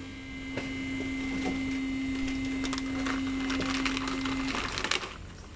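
Plastic bag crinkling and rustling as it is handled, over a steady electric machine hum that cuts off about four and a half seconds in.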